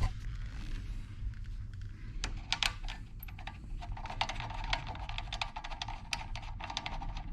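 Light, irregular metallic clicks and taps of nuts being threaded and done up onto a car seat's mounting bolts with a hand tool, over a low steady hum.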